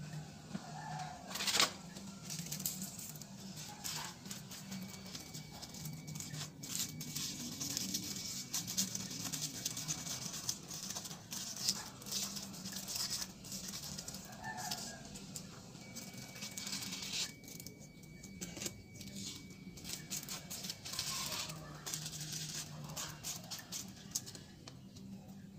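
Sandpaper being torn into strips and handled: spells of rough ripping and rustling that come and go.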